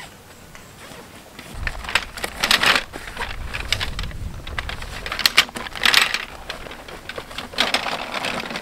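Nylon tent fabric and its carry bag rustling and swishing in several loud bursts as a packed tent is pulled out of the duffel.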